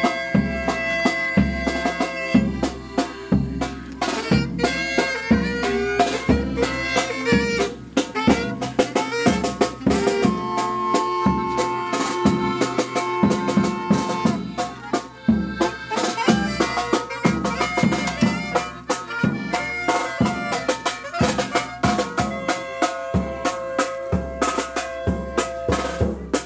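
A band of saxophones and accordion playing a tune over a steady drum beat.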